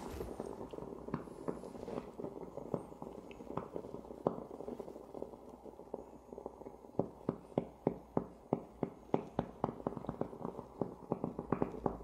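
Handheld spray bottle trigger clicking as it is pumped to wet the can, scattered at first and then quick and even, about three clicks a second, in the second half.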